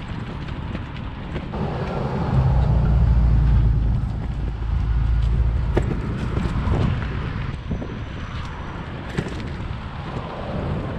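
Wind buffeting a handheld action camera's microphone while a bicycle rides along a dirt path, with scattered clicks and knocks from the bike over bumps. The wind rumble is heaviest about two to four seconds in.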